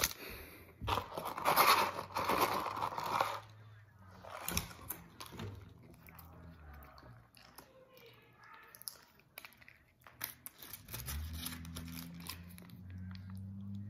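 Paper food wrapper crinkling and rustling loudly for a couple of seconds, then lighter crackles and clicks of packaging being handled. A low steady hum comes in near the end.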